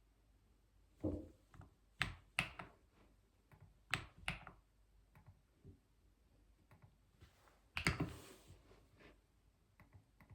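Typing on a computer keyboard: irregular keystrokes, some in quick runs of two or three, with pauses between, and one longer, louder rattle about eight seconds in.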